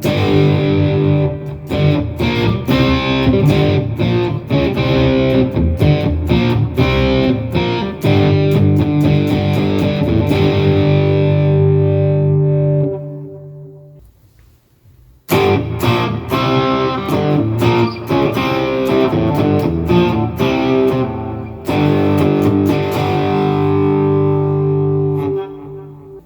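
Electric guitar played through a computer amp-modelling rig into a full-range (FRFR) amplifier: two phrases of picked notes and chords. Each phrase ends on a held chord that rings out and fades, with a short pause between them about halfway through.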